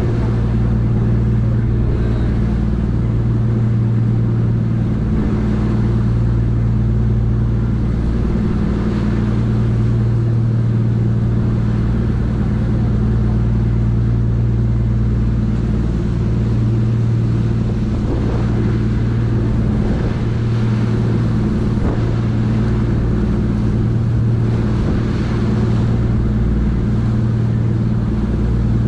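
Sightseeing cruise ship's engines running steadily at cruising speed, a deep even drone, over the rush of the churning wake behind the stern.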